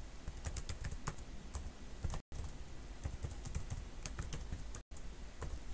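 Computer keyboard typing: irregular keystrokes as shell commands are entered. The audio cuts out completely twice, for a split second each time.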